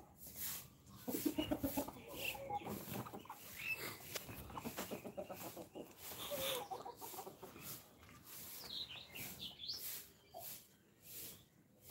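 Desi chickens clucking with short, repeated calls, loudest about a second in, with a few higher squawks near the end.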